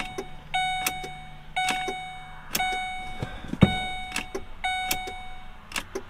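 2006 Mercury Mountaineer's dashboard warning chime sounding about once a second, with several sharp clicks and a knock about three and a half seconds in as the key is tried. The engine does not crank: a no-start that the mechanic puts down to the Ford PATS anti-theft system.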